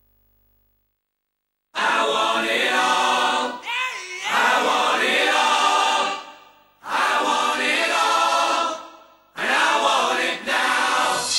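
Background music of a choir singing in long phrases. It comes in after about two seconds of silence and breaks off briefly twice.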